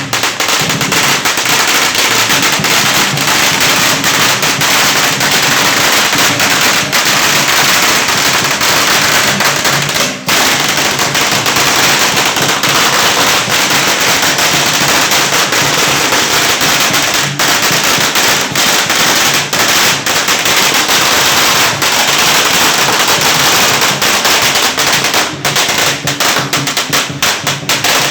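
A long string of firecrackers going off continuously, a dense rapid crackle of loud bangs with a short lull about ten seconds in.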